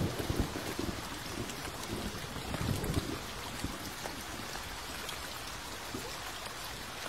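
Steady rain falling, an even hiss of drops, with irregular low rumbles through the first three seconds or so.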